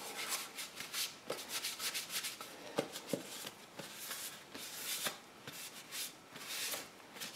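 Hand scrubbing of plastic chrome-plated tail-light trim: quick, repeated rubbing strokes on the plastic, with a few light clicks, as dirt and old paint overspray are worked off.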